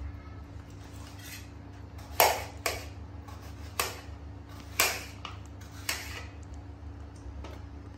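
Kitchen knife cutting watermelon wedges on a ceramic plate, the blade knocking against the plate in about six sharp clicks over a few seconds, the loudest about two seconds in. A steady low hum runs underneath.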